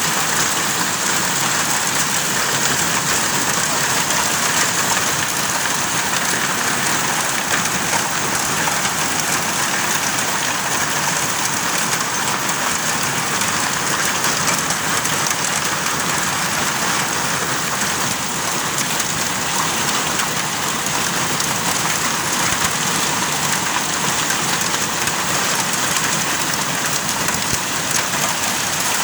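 Hailstorm: hailstones and heavy rain pelting down in a steady, dense downpour that does not let up.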